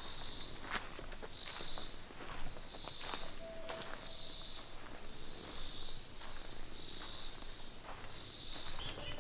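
Insects calling in the woods: one keeps up a steady high-pitched trill while another pulses in regular bursts about once a second. Faint scattered clicks run underneath.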